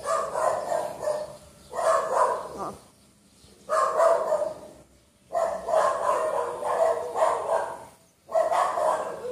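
Dogs barking in repeated runs of a second or two with short pauses between: house dogs barking at strangers standing at their door.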